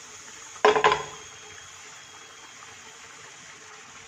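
Cumin seeds and two dried red chillies sizzling steadily in a little hot desi ghee in a frying pan, a tadka. Just under a second in, a brief loud clatter.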